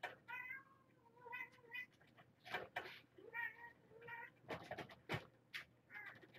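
Kittens meowing: a string of short, high-pitched meows, with a few light knocks from them climbing and jumping about.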